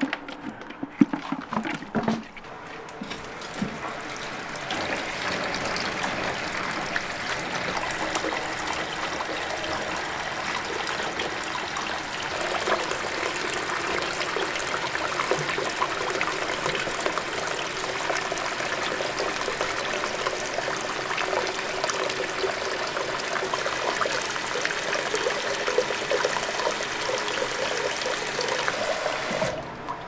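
Tap water pouring in a steady stream into a plastic bucket, filling it. It is preceded by a few knocks at the start and cuts off suddenly near the end.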